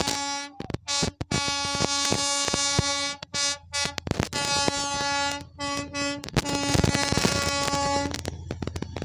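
Darjeeling Himalayan Railway toy train sounding a long, steady-pitched horn, broken by several short dropouts and cutting off near the end.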